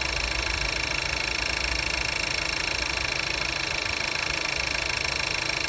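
2015 Audi A3's 1395cc (1.4 litre) TFSI turbocharged four-cylinder petrol engine idling steadily, heard close up from the open engine bay.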